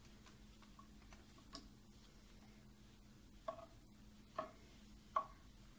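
Whole peeled garlic cloves dropped by hand onto raw vegetables in a pot, making four light taps over a faint steady hum.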